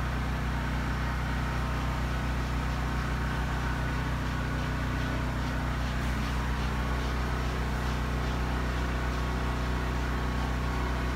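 Steady low hum of a generator running, its level constant throughout.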